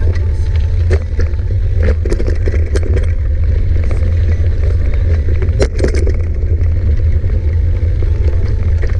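Wind rumbling over the microphone of a camera on a moving mountain bike, with scattered clicks and rattles from the bike on rough ground, a short cluster of them about two-thirds of the way through.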